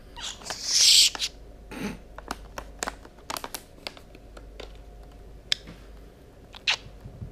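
Scattered light clicks and taps from a budgerigar moving about on a wooden floor right next to the camera, with a brief rustle about a second in.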